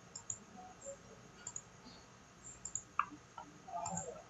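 A computer mouse clicking several times, faint and irregular.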